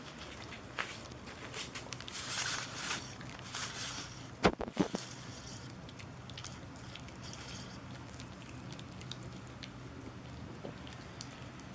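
Small dog crunching and gnawing a chicken-foot treat: bursts of crunching with scattered clicks, two sharp cracks about four and a half seconds in, then only faint clicks.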